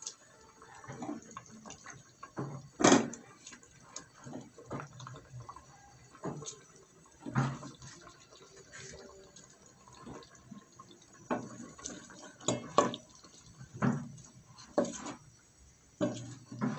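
Wooden spoon stirring a potato-and-meat curry in an aluminium pot: irregular wet squelches, with sharp knocks where the spoon hits the pot, the loudest about three seconds in.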